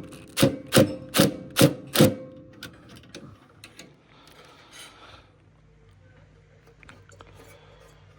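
A quick, even series of sharp knocks with a short metallic ring, about two and a half a second, stopping about two seconds in. After it comes a brief hiss, then a faint steady low hum.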